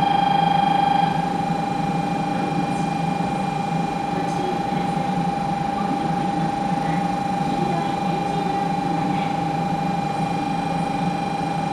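Station platform departure buzzer sounding for a Shinkansen's departure as one unbroken high electronic tone, dropping slightly in level about a second in. Under it is the low steady hum of the 500-series train standing at the platform.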